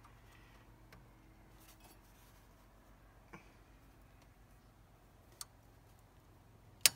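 Wrench working the alternator's adjusting bolt: a few faint scattered clicks, then one sharp metallic click near the end.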